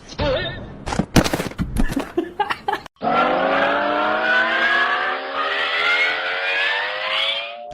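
Several sharp knocks and clatters, then an engine drone that rises slowly and steadily in pitch for about four and a half seconds, like a motor revving up, and stops abruptly near the end.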